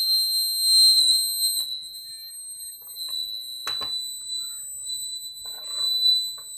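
Alarm buzzer of a home-made relay tripwire alarm sounding one steady, high-pitched tone with overtones: the trip wire has just been cut, so the relay has switched the buzzer on. About four seconds in there is a sharp click, and near the end some brief handling noise.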